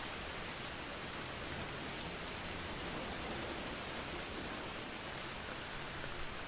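Steady rain falling, an even hiss with no sudden swells.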